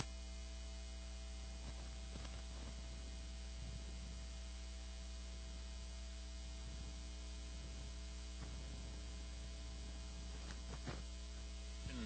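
Steady low electrical mains hum over faint room noise, with a couple of faint ticks near the end.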